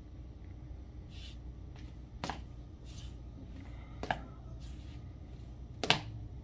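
Three sharp knocks, evenly spaced just under two seconds apart and the last the loudest, with a soft brushing or rustling sound between each, over a low steady room hum.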